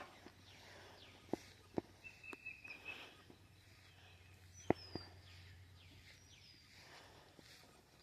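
Quiet outdoor ambience with birds chirping faintly and a few sharp clicks or footsteps, the loudest about four and a half seconds in.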